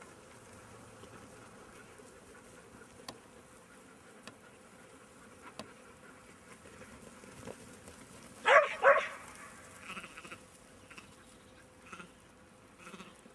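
Sheep bleating: two loud wavering bleats in quick succession about two-thirds of the way in, then a few fainter bleats. A faint steady insect buzz sits underneath.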